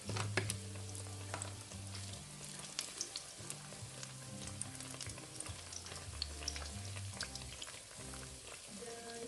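Battered banana slices deep-frying in hot oil: a steady sizzle with scattered crackles and pops. Soft background music with slow held low notes plays underneath.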